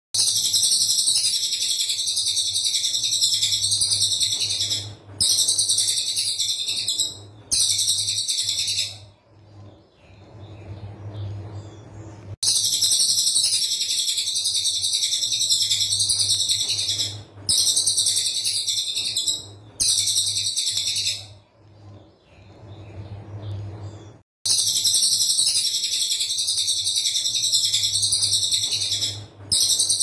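Caged cililin coklat singing its tight, rapid-fire 'tembakan rapat' phrases: dense, shrill, high-pitched runs of notes lasting a few seconds each. They come three in quick succession, then stop for a few seconds, and the pattern repeats. A faint steady low hum sits underneath.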